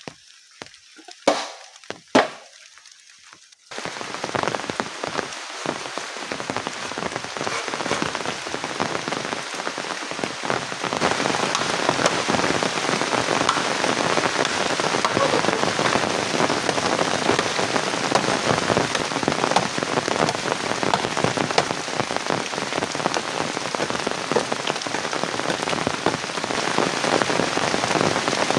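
A few sharp knocks, then about four seconds in, heavy rain noise starts abruptly and continues steadily, growing a little louder after about eleven seconds.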